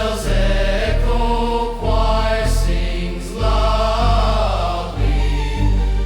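Orchestral Christmas music with a choir singing held chords over deep bass notes, the bass changing about every second and a half.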